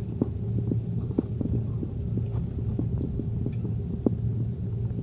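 Jet airliner cabin noise while rolling on the runway: a steady low engine and rolling hum, with light irregular knocks and rattles from the cabin as the aircraft runs over the pavement.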